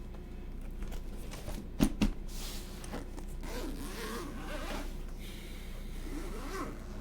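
Handling noise: two sharp knocks close together about two seconds in, then a zipper-like rasping scrape, heard twice.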